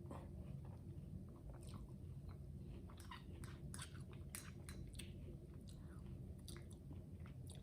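Faint chewing of a mouthful of Rice Chex cereal in milk, with many small irregular crunches and mouth clicks.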